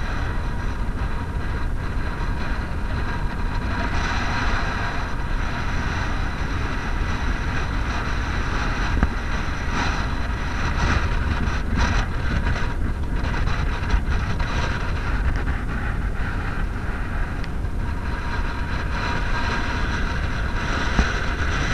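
Strong wind buffeting the microphone of a body-worn camera: a steady, heavy low rumble.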